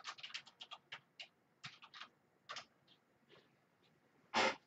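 Quick light clicks and scratchy rustles from hands handling things at a desk, dense in the first couple of seconds and then sparser, with one louder brief rustle near the end.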